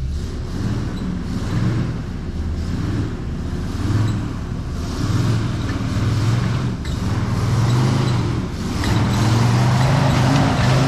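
Jeep Wrangler engine revving up and down under load as it crawls up a rutted, muddy hill, loudest about nine seconds in.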